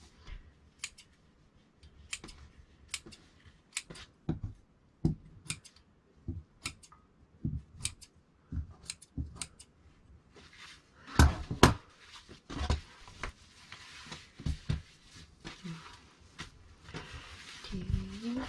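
Tailor's scissors snipping again and again in short, sharp, irregular cuts, with a louder cluster of snips about eleven seconds in: cutting the basting threads of tailor's tacks in layered jacket fabric.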